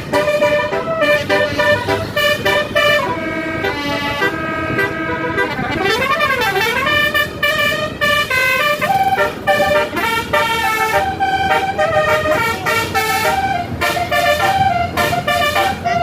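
Basuri telolet bus horn, a multi-tone musical horn, playing a tune of held notes that step from one to the next, with a swooping fall-and-rise about six seconds in, over steady engine noise.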